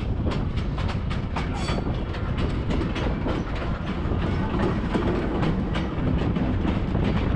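Narrow-gauge passenger train rolling along, heard from an open-air car: a steady rumble of wheels on rail with many irregular clicks and clacks from the track.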